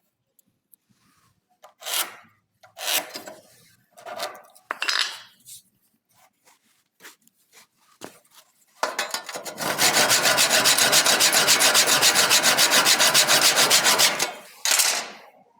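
Rasping and scraping on wood: four separate strokes, then about five seconds of fast rasping at about ten strokes a second, and one last stroke near the end.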